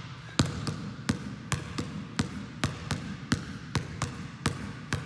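Basketball dribbled hard on a gym floor, about three bounces a second in an uneven rhythm of an onside dribble followed by two crossovers, each bounce echoing in the hall.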